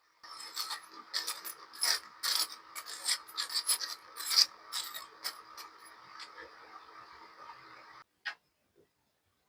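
Hot frying oil sizzling under irregular scrapes and clicks of a utensil against the pan as fried potato wedges are lifted out. The sound cuts off suddenly about eight seconds in.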